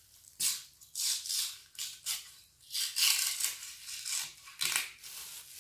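A scraper blade pushed under a thin 3D print on a glass printer bed, scraping in repeated short strokes as the print is pried off the glass.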